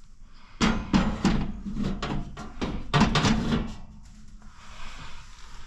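A run of clanks, knocks and rattles of sheet metal being handled, the Mr. Heater Big Maxx's black steel side panel, crowded in the first few seconds, then settling to faint handling noise.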